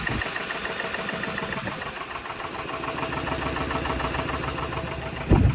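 Li Auto L9's petrol range-extender engine idling roughly with a steady rhythmic knock, the engine shaking as it runs. The knock is a fault on an engine of only 25,000 km.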